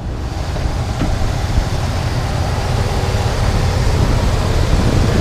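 Buick 350 V8 idling steadily with the hood up, with wind rumbling on the microphone.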